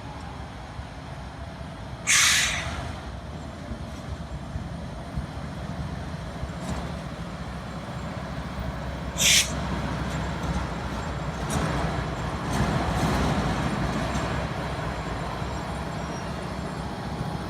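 Diesel locomotive running, with two short sharp hisses of released brake air, about two seconds in and again about nine seconds in.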